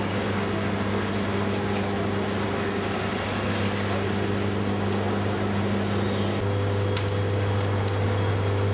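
Steady hum of factory machinery: a low electrical drone with a hiss over it. The drone changes character about six and a half seconds in, and a few sharp clicks follow near the end.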